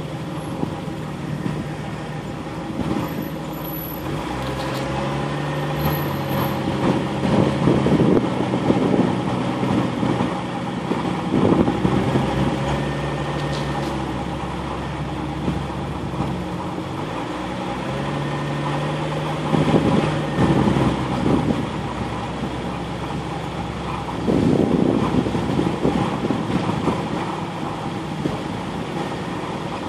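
Off-road vehicle's engine running as it drives a rough dirt trail, its note stepping up and down with the throttle, with louder jolts and rattles over bumps several times.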